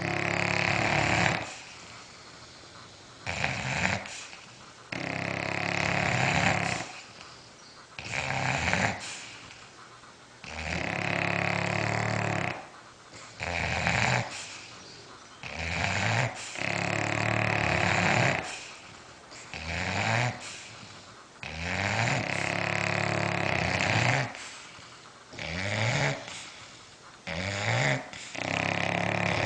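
Bulldogs snoring, a loud snore about every two seconds, each lasting a second or two.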